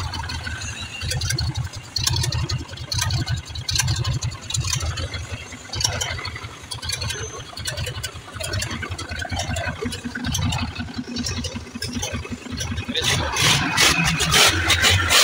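Hino straight-six diesel engine running on a stand, a low rumble that pulses unevenly. A burst of sharp clicks and rattles comes in near the end.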